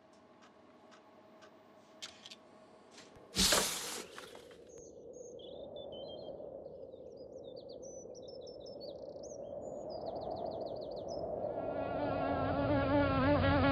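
Housefly buzzing, a wavering hum with many overtones that grows steadily louder. Before it come faint regular ticking and a sudden loud rushing burst about three and a half seconds in, and short high chirps sound briefly in the middle.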